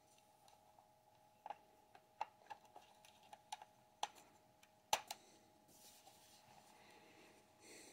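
Light plastic clicks and taps as the battery-compartment cover of a Dwarf II smart telescope is pressed back into place, about nine clicks over three and a half seconds, the loudest near five seconds in, followed by faint handling rustle.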